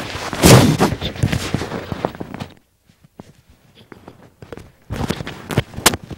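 Bumps, knocks and rustling from a person moving about and handling things: a dense run of knocks for about two seconds, a pause, then a few sharp knocks near the end.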